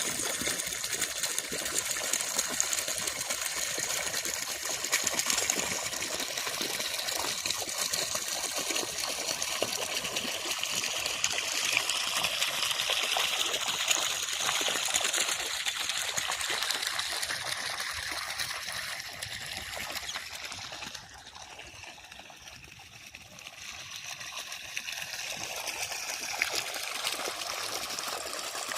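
Water running steadily, a trickling, gushing flow that drops away for a few seconds past the two-thirds mark and then picks up again.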